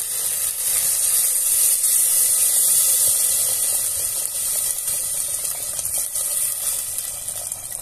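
Water poured from a jug into a hot aluminium pressure cooker of browned chicken, a steady splashing hiss with sizzling from the hot pan, easing a little toward the end.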